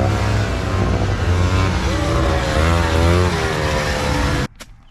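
Racing snowmobile engines running at high revs, their pitch rising and falling as the sleds pass. The sound cuts off suddenly near the end.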